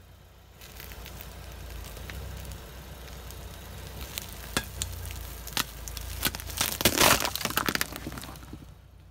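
Car tyre rolling slowly over a ball covered in candy-coated chocolates, over a low engine rumble. A few sharp cracks come about four seconds in as candies pop loose, then a dense run of crunching and cracking about seven seconds in as the ball is crushed flat, dying away near the end.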